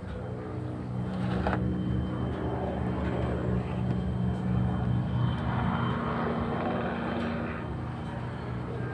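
A steady engine-like drone that grows louder about a second in and eases off near the end.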